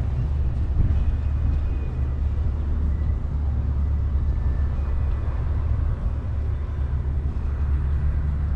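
Bayliner deck boat's outboard motor running steadily under way, a deep even drone.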